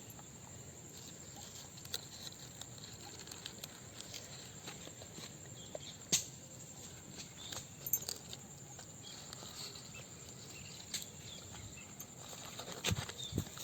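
Cooked banana leaf being unwrapped from a chicken parcel by hand: scattered crackles and rustles of the wilted, griddle-fried leaf, over a faint steady background.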